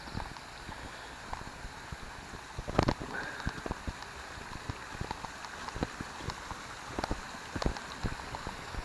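Steady rush of a forest stream and waterfall, with irregular footsteps and scuffs on a slippery path over it; a louder knock about three seconds in.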